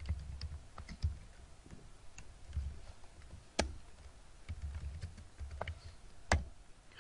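Irregular typing on a computer keyboard, with two sharper clicks, one about halfway and one near the end.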